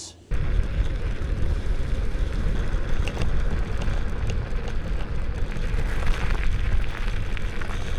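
Rumbling noise of riding an electric scooter along a trail, with wind buffeting the microphone.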